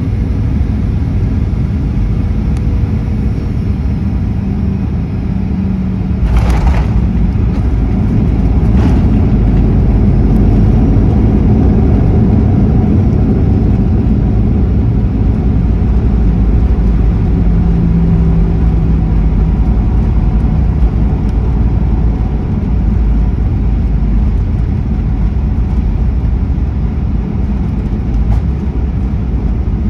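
Boeing 737 cabin noise during the landing: a steady low rumble, with two sharp thumps about six and nine seconds in, and the rumble growing louder from about ten seconds on.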